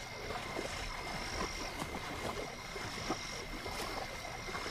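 Night swamp chorus of frogs: a steady high ringing note, a higher trill that comes and goes three times, and many short clicking croaks.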